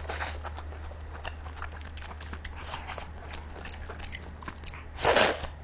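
Close-miked mouth eating sounds from chewing steamed chicken: small wet clicks and smacks, with a louder bite about five seconds in. A steady low hum runs underneath.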